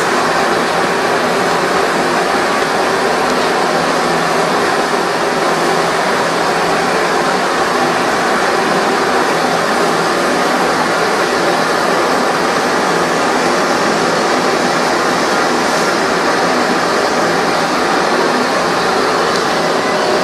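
Primus kerosene stove burning, a steady, even rushing hiss from its pressurised burner.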